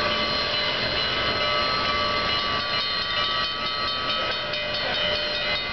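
Union Pacific 844, a 4-8-4 steam locomotive, sounding its chime whistle in a long, steady blast of several tones at once. From about halfway through, a quick, even beat joins in as the locomotive gets under way.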